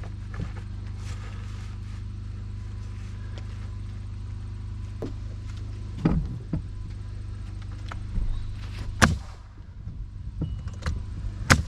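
Three sharp knocks, about six, nine and eleven and a half seconds in, the later two loudest, from nails being driven into rough-sawn poplar siding boards, over a steady low hum.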